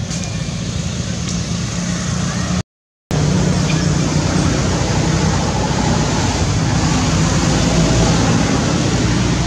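Steady outdoor rumble and hiss, with a brief dropout to complete silence about three seconds in.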